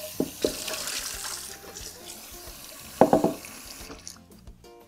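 Tap water running and splashing inside a glazed stoneware crock pot insert held over a stainless steel sink. About three seconds in the insert gives a few sharp ringing clunks as it is set down, and the water shuts off shortly after.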